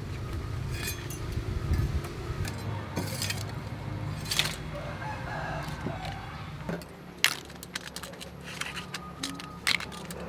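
Chopped blue crab pieces clinking against a stainless steel colander as they are handled, a few sharp clicks, with chickens clucking in the background.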